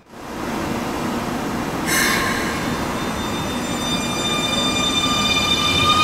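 Keikyu electric train pulling away under a low rumble. Its VVVF inverter motor whine sets in about two seconds in as a stack of tones, which begin rising in pitch as the train accelerates.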